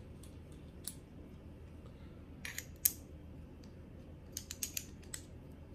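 Light clicks and clatter from handling a KME guided knife sharpener while a 9-micron strop is fitted into its guide arm. A few scattered clicks, one sharp knock just before the middle, and a quick run of small clicks near the end.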